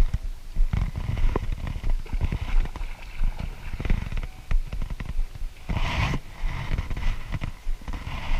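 Irregular low knocks and thumps on a boat, from people and gear moving about during a fish fight, with a brief rush of noise about six seconds in.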